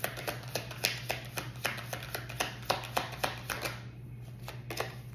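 A deck of oracle cards being shuffled by hand: a quick, irregular run of short card flicks and slaps. It stops about four seconds in, and a couple of last flicks follow as a card is pulled from the deck.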